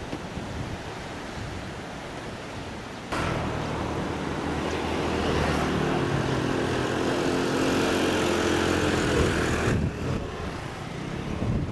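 Surf and wind noise, then about three seconds in a louder, steady engine drone with a low hum starts abruptly and cuts off suddenly near the end.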